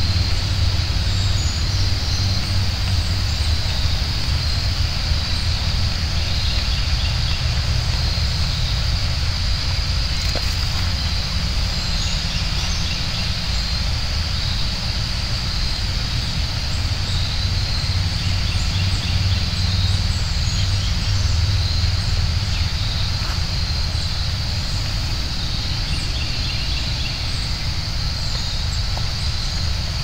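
Steady open-country outdoor ambience: a constant low rumble under a steady high-pitched drone, with scattered faint bird chirps.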